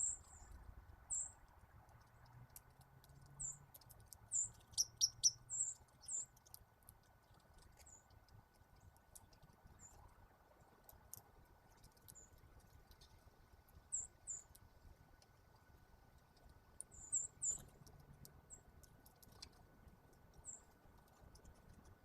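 Songbirds giving short, high chip notes, scattered irregularly, with a quick run of calls about five seconds in and another around seventeen seconds, and a few faint clicks in between.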